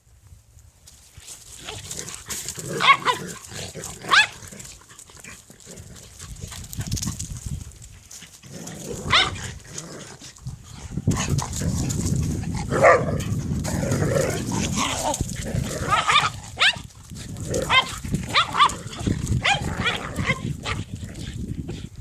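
Dogs fighting: short, sharp calls come every second or few, over dense low noise that builds from about halfway in.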